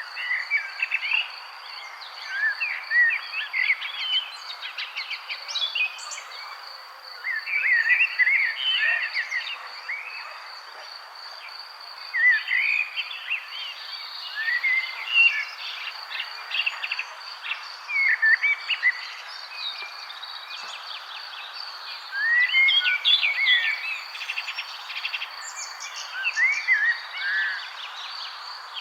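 Several songbirds chirping and singing in short bursts every few seconds, over a steady high-pitched insect trill and a soft background hiss.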